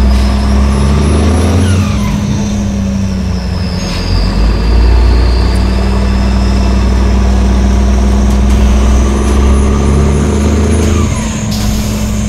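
Heavy diesel engine of a military 5-ton truck straining at high throttle under a tug-of-war load: a deep, steady drone with a high whine that rises and falls above it. The engine note dips briefly about two seconds in and again near the end.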